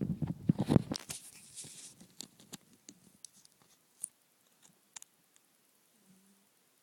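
Rustling and crackling clicks, loudest in the first second and a half, then scattered faint clicks and a brief low hum about six seconds in.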